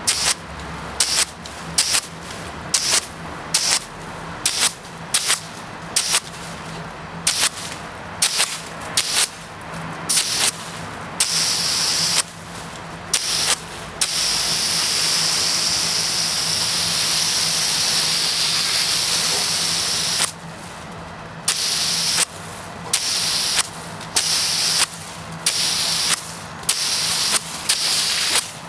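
Jet of water from a hose hissing in short, regular bursts, about two a second. About halfway through it runs unbroken for about six seconds, then the bursts start again.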